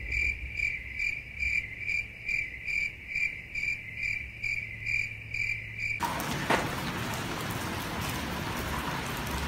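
Cricket chirping sound effect, the stock gag for an awkward silence: an even, high chirp about twice a second that cuts off abruptly about six seconds in. A steady hiss follows.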